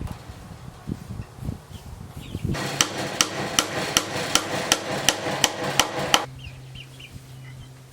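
Hammer striking in a steady run of about a dozen quick blows, roughly three a second, that starts a couple of seconds in and stops abruptly, fastening wire mesh to the wooden frame of a chicken coop.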